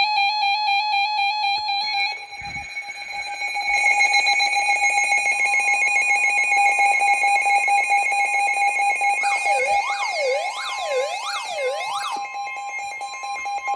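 Emergency Alert System attention tone: a loud, steady, buzzy alarm tone that signals a warning is about to be read. A second higher tone joins about five seconds in, and a wailing tone sweeps rapidly up and down several times between about nine and twelve seconds in.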